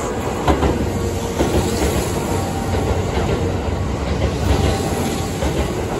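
Kintetsu limited express electric train running along the platform close by: a steady rumble with the clack of wheels over rail joints.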